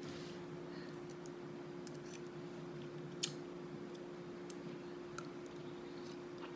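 Scattered light clicks of a metal fork working noodles in a plastic bowl and of eating, the sharpest about three seconds in, over a steady low hum.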